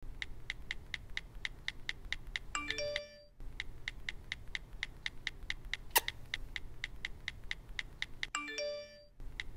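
Background music with a steady ticking beat, about four ticks a second, over a low hum. A short chime figure of a few ringing notes sounds twice.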